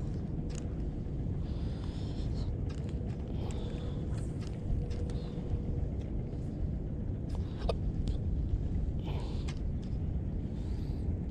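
Wind rumbling on the camera microphone, with a few faint clicks and ticks scattered through it.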